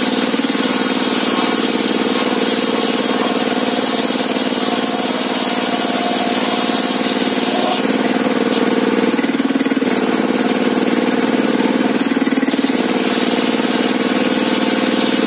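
Sawmill table-saw machinery running with a steady, loud mechanical drone; its tone shifts slightly about eight seconds in and again near twelve seconds.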